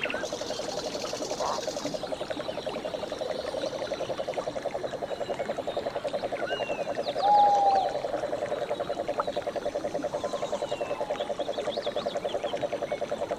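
Frogs calling in a steady, fast pulsing trill, with scattered bird chirps above it. A brief louder call stands out about seven seconds in.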